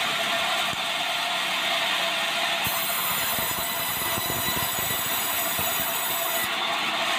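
Sawmill saw running and cutting through a long meranti timber beam, a steady high-pitched noise, with a run of knocks from the timber on the rollers around the middle.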